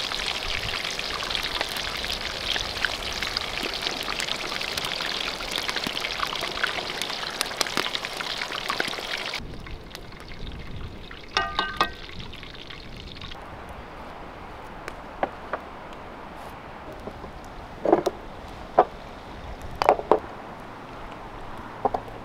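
Whole quail frying in hot oil in a kazan over a wood fire: a dense, steady sizzle full of small pops and crackles, which cuts off about nine seconds in. After it comes a quieter stretch with a few brief clinks and then several sharp knocks and clicks near the end.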